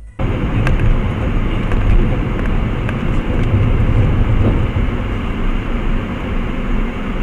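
Road noise of a car heard from inside its cabin while driving: a steady mix of engine and tyre noise that starts suddenly about a quarter second in, with a few faint ticks.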